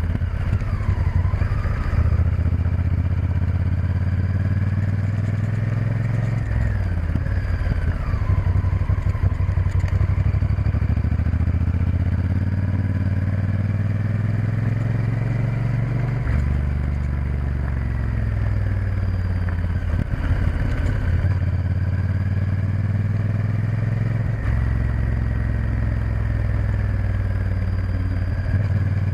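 Honda Varadero XL1000's V-twin engine running steadily while riding, heard from on board the motorcycle. The engine note rises and falls every few seconds with changes in throttle and speed.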